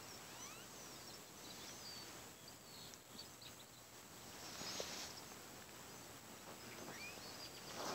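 Quiet outdoor ambience with scattered faint, high bird chirps, and a brief crunch of a bare foot stepping on dry grass about five seconds in.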